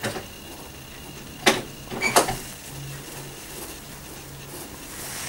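Cat licking a wet fabric sofa cushion: soft wet licks with a few sharp clicks, the loudest about one and a half and two seconds in.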